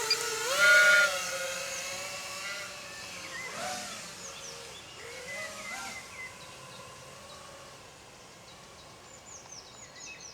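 FPV quadcopter's motors and propellers whining as it takes off and flies away, the pitch rising and falling with the throttle and the sound fading as it goes. Bird chirps near the end.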